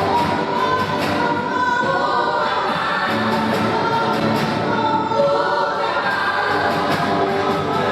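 Church choir singing a gospel hymn, many voices together on long held notes.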